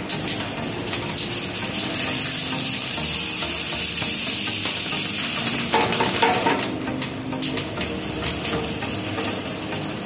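Mountain bike rear wheel spinning fast on a Shimano Alivio drivetrain: the chain running over the cassette and through the rear derailleur with a steady whir and fine ticking.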